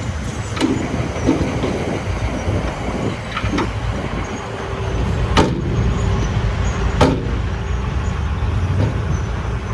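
Road roller's engine running steadily with a low rumble, with sharp metallic knocks twice, about halfway through and again a second and a half later.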